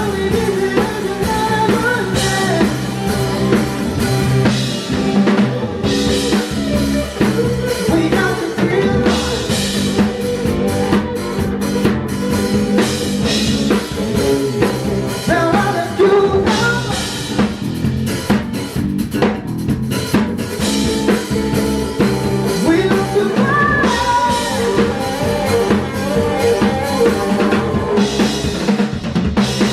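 Rock band playing live, a drum kit with snare and bass drum driving the beat under the other instruments.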